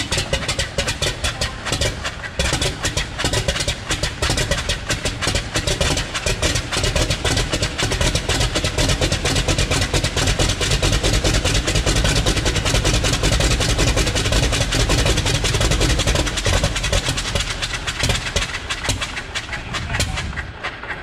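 Wright R-975 nine-cylinder radial engine of a BT-15 trainer running on a ground run: a rapid, even beat of firing pulses over a low rumble, loudest through the middle and easing off near the end.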